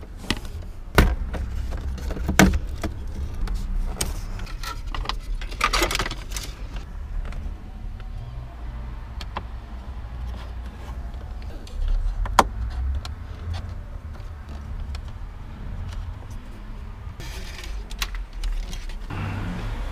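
Scattered clicks, knocks and rattles of plastic dashboard trim and loose wiring being handled, over a steady low rumble.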